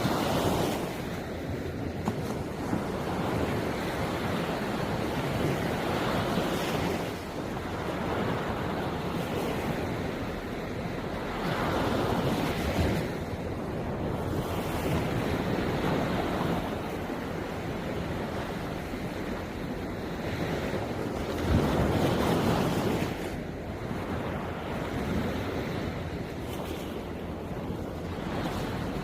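Sea waves washing onto the shore, swelling and easing every five or six seconds, the biggest surge a little past two-thirds of the way through. Wind rumbles on the microphone underneath.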